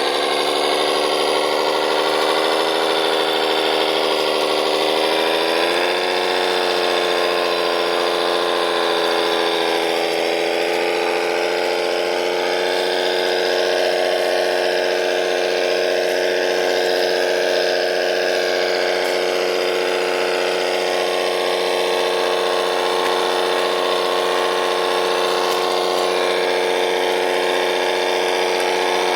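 Electric drive motors and gearboxes of radio-controlled construction models whining steadily. The pitch steps up slightly about six seconds in, then holds.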